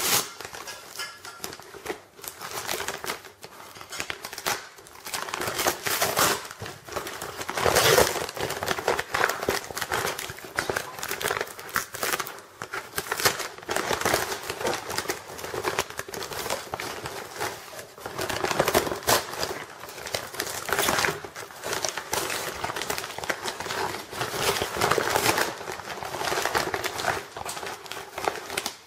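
Brown paper package crumpling and crinkling as hands tear and cut it open: irregular rustling, with louder bursts every few seconds.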